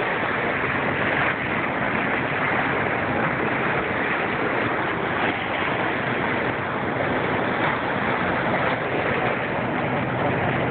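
Steady rush of water from a moving boat's bow wave.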